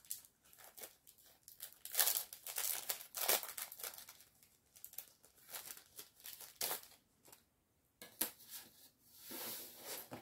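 Plastic packaging crinkling and rustling in irregular bursts as it is handled and pulled off.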